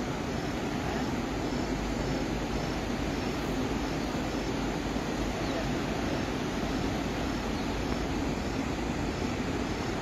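Waterfall rushing: a steady, unbroken roar of falling water, with a faint high chirp repeating about every two-thirds of a second.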